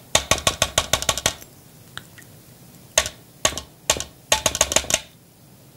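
Metal measuring spoons clicking and tapping against a small glass dish as tomato paste is scraped out: a fast run of clicks for about a second, a single tap about three seconds in, then several more short runs of quick taps.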